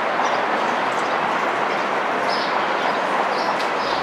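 Steady street noise of a vintage-style trolley streetcar running along in-street rails amid traffic, with a few short high chirps.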